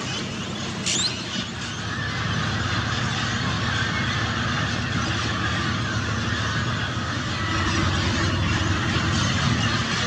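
A flock of parrots screeching and calling over one another in a dense, continuous din, with one louder falling screech about a second in, over a low steady rumble.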